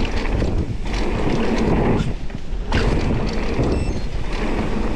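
Mountain bike running fast down a dirt trail: tyre roar and frame and chain rattle, with wind buffeting the microphone. Briefly quieter about two seconds in.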